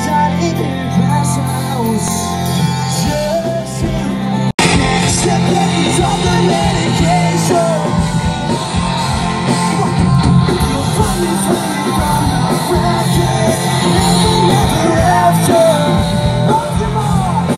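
Live band playing amplified, with a singer over guitar, heard from within the crowd. The sound drops out for an instant about four and a half seconds in.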